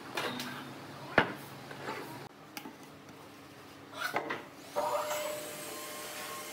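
Wooden knocks and clatter from a wooden chair frame being handled on a workbench, with one sharp knock about a second in. A few seconds later a timber beam thuds onto a bandsaw table, and the bandsaw starts up and runs with a steady whine.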